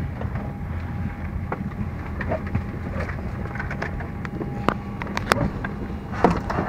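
Steady low hum of a parked airliner's cabin, with scattered light clicks and knocks from passengers moving about the seats and aisle.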